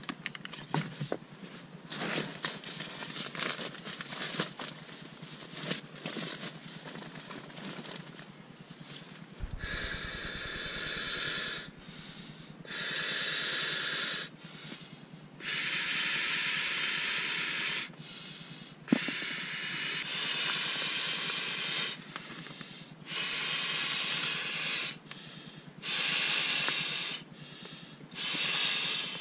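Nylon sleeping-bag and tent fabric rustling and crinkling for the first several seconds. Then, about ten seconds in, seven long hissing blows of breath begin, each about two seconds, with short pauses between.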